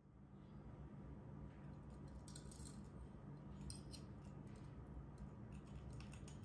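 Metal fork pressing into a crispy fried egg: faint crackling crunches of the crisp egg about two and a half seconds in, near four seconds and again near six, over a steady low hum.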